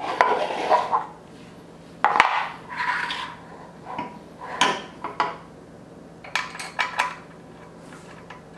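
Small metal hardware (bolt, washer and lock nut) clinking and scraping against the steel stabilizer bracket of an indoor cycling bike as it is fitted by hand, in several short bouts of clicks and clatter with quiet gaps between.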